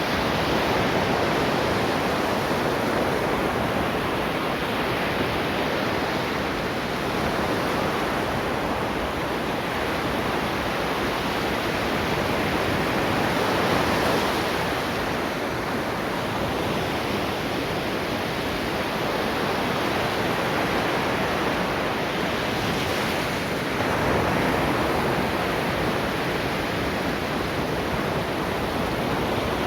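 Ocean surf, a steady rush of waves breaking and washing on the shore. The level swells and eases, with louder waves about halfway through and again about three quarters of the way through.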